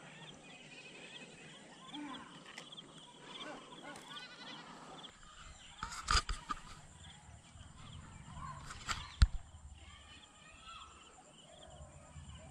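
Faint chirping animal calls in the background, with two sharp knocks about six and nine seconds in from the camera being handled.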